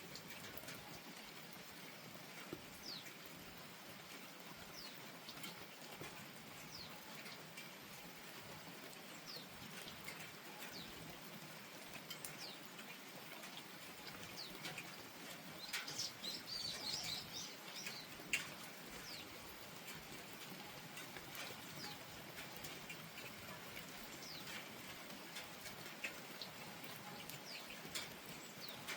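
Steady rain falling, an even soft hiss with scattered short, high, sharp sounds throughout. A busier flurry of high sounds comes a little past halfway, followed by a single sharp tick.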